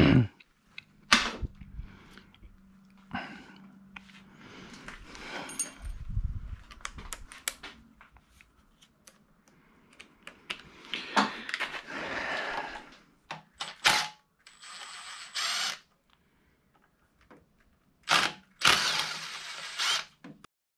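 Cordless impact driver run in several short bursts on the 5/16 screws of an Onan twin's stator, with knocks and clatter of tools being handled in between.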